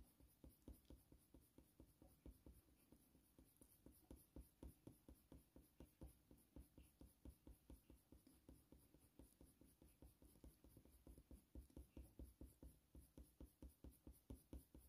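Faint, rapid strokes of a Faber-Castell Polychromos coloured pencil shading on hot-press watercolour paper, about three or four short scratches a second, in a steady back-and-forth rhythm.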